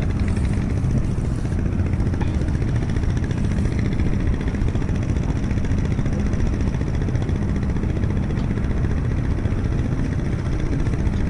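Boat engine running steadily: a low, even drone.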